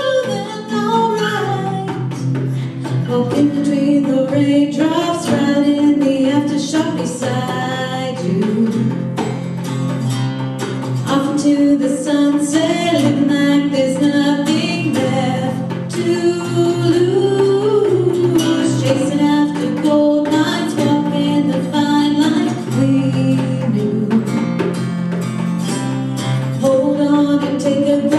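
Live acoustic band: a woman singing a melody over strummed acoustic guitar, with a djembe hand drum keeping time.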